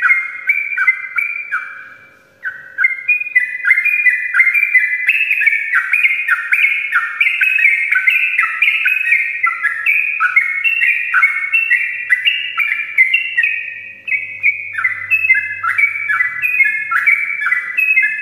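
Yellow-vented bulbul (trucuk) singing a long, rapid run of bubbly whistled notes, many dropping in pitch, breaking off briefly about two seconds in and then running on without pause.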